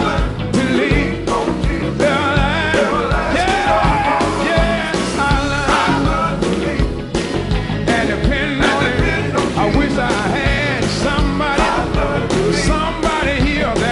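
Live quartet gospel music: a male lead singer sings over electric guitar, bass and a steady beat.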